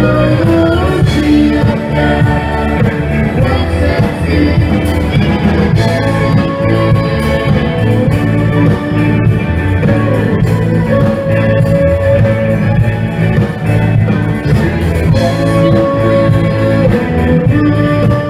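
Live band playing through a PA: a woman singing lead over electric guitars and keyboard, with a steady beat.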